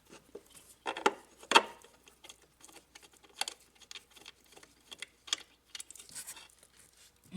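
Scattered light clicks and knocks of hands and tools working on engine parts, the two loudest about a second and a second and a half in.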